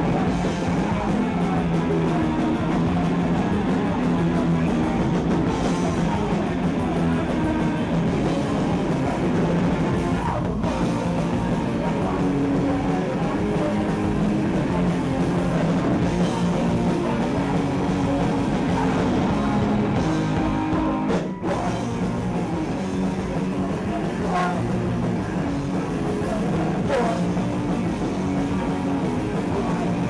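Punk rock band playing live: electric guitars and a drum kit, loud and continuous, with a split-second break about two-thirds of the way through.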